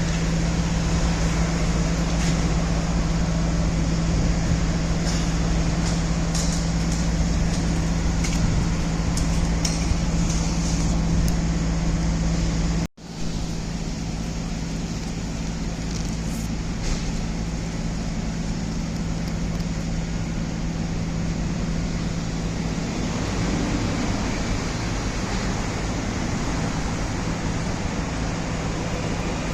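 Steady mechanical hum with a constant low tone over traffic-like street noise. It cuts out for an instant about 13 seconds in, then carries on a little quieter, and the low tone fades out about 23 seconds in.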